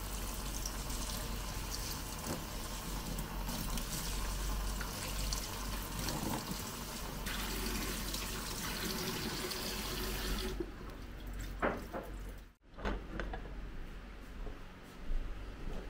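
Water running steadily from a tap into a sink or container for about ten seconds, then stopping, followed by a few light knocks and clinks of hard objects.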